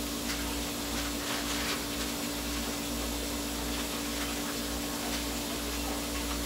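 Steady background hum: one constant low tone over a low rumble and hiss, with a few faint soft scratches between one and two seconds in.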